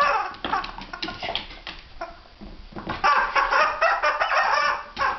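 Rubber squeaky duck toy squeaking again and again as a dog chews it, a few scattered squeaks and then a dense run of squeaks in the last two seconds.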